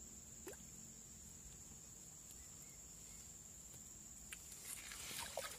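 Faint, steady high-pitched drone of insects in the surrounding vegetation, with a few soft clicks and rustles near the end.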